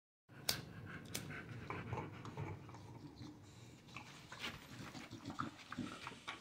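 American bully dogs panting as they lie chewing on toys, with scattered small knocks and two sharp clicks about half a second and a second in.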